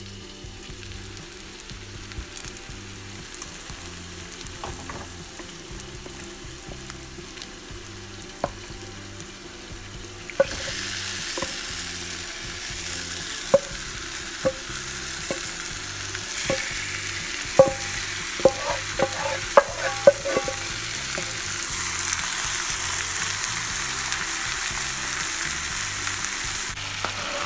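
Marinated chicken sizzling in hot oil with browned onions in a frying pan. The sizzle jumps up sharply about ten seconds in as the chicken hits the oil, and a spatula clicks against the pan a number of times while it is stirred.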